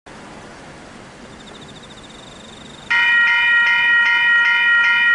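Level crossing warning bell starting up about three seconds in and ringing on with rapid, even strokes, about three a second: the crossing has been activated for an approaching train. Before it, only quiet outdoor background.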